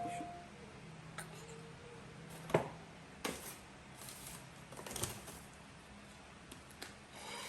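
A few light clicks and taps of objects being handled at close range, the sharpest about two and a half seconds in, with soft rustling between them.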